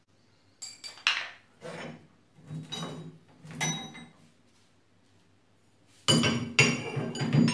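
Steel bars and cast-metal lathe parts clinking and knocking against each other as they are handled, each knock ringing briefly. A few separate clinks come first, then a louder run of clanking near the end.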